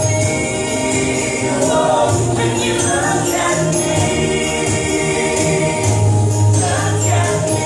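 Men and a woman of a vocal group singing an original pop song together in harmony, over backing music with a steady, recurring bass.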